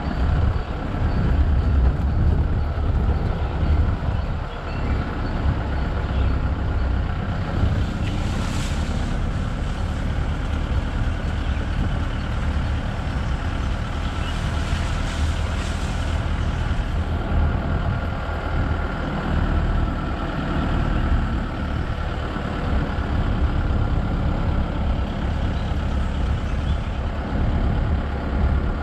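Safari vehicle's engine running as it drives, a steady low rumble, with two short stretches of hiss about eight seconds in and again around fourteen to sixteen seconds.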